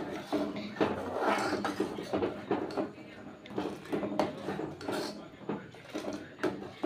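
Metal ladle scraping and clinking against the side of a metal pot of simmering milk, in irregular strokes as the milk is stirred, scooped up and poured back.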